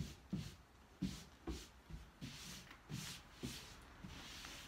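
Hands smoothing a spray-basted cotton quilt panel flat over its batting: soft swishes of palms brushing across the fabric, about two strokes a second.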